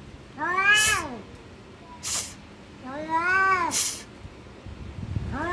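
Two domestic cats in a fighting standoff, caterwauling: two long drawn-out yowls that rise and fall in pitch, each about a second long, with a third starting near the end. Short sharp hisses come between and at the tail of the yowls.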